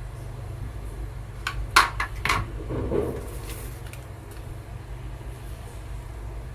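Objects being handled: three or four sharp clicks and knocks in quick succession about a second and a half in, then a brief rustle, over a steady low hum.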